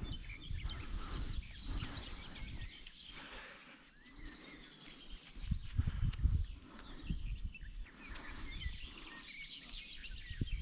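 Several songbirds chirping and singing throughout, with short intermittent low rumbles underneath.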